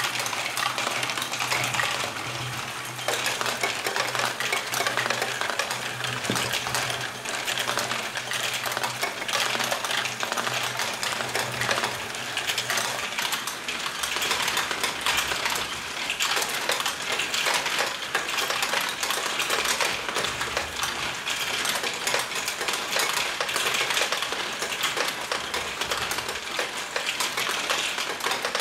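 LEGO Great Ball Contraption modules running: a dense, continuous clatter of small plastic balls rolling, dropping and knocking through LEGO tracks, lifts and wheels. For the first half a steady low hum sits under the clatter, then drops away.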